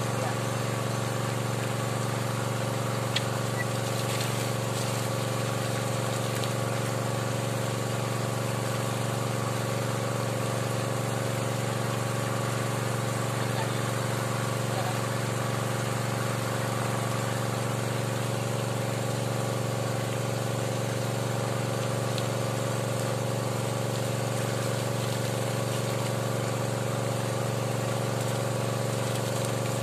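Small engine running steadily at one constant speed, of the kind that drives the water pump flushing a hand-turned well-drilling pipe.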